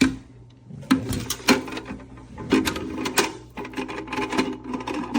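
Plastic and metal parts of a home espresso machine clicking and knocking as they are handled and checked over, a quick uneven run of sharp clicks.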